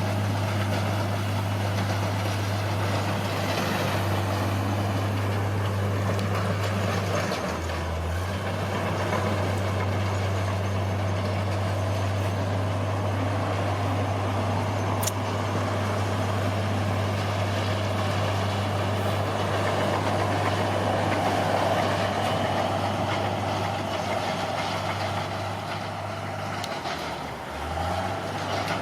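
Heavy diesel earthmoving machine's engine running steadily under load, with mechanical clatter over it and brief dips in engine note about 7 seconds in and again near the end.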